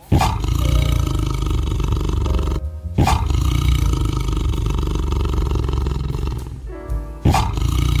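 Tiger roaring: deep, loud roars, each starting sharply, three times about three seconds apart, the last one shorter near the end.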